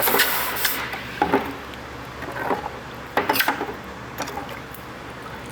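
A gas brazing torch's flame hissing, cut off under a second in, followed by scattered light metallic clinks and knocks as the brazed copper pipe pieces and tools are handled.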